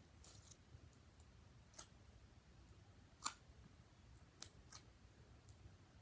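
Homemade slime being squeezed and kneaded by hand, giving faint, irregular sticky clicks and pops, the loudest a little past halfway.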